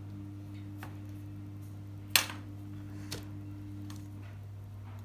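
Metal fluted scone cutter clinking against a glass pastry board: one sharp knock about two seconds in, with fainter taps before and after, over a steady low hum.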